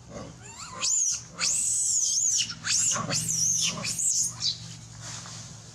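Young macaque screaming: a run of shrill, high-pitched screams that sweep up and fall away, from about a second in until near the end. These are the distress screams of a small monkey under attack by a larger one.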